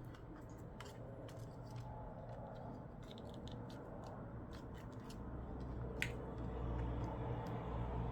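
Small scraping and clicking as old screen adhesive is scraped and picked off a Samsung Galaxy Tab A's frame, with a sharp click about six seconds in. A low hum comes up about five seconds in.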